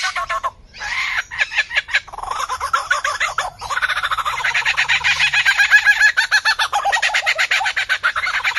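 Lyrebird singing from a perch: a fast, varied stream of repeated notes and clicks. About four seconds in it becomes a louder, denser rapid chatter.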